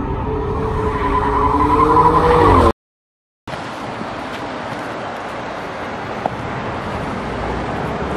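A car engine revving on a track, its pitch climbing, for the first two and a half seconds or so, then cut off abruptly. After a brief silence comes steady street traffic noise.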